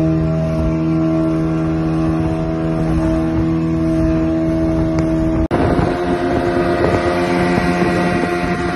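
Twin outboard motors of a speedboat running steadily at high speed, a constant engine drone, with water rushing and splashing against the hull and wind on the microphone. The sound drops out for an instant about halfway through, and after that the rush of water and wind is rougher.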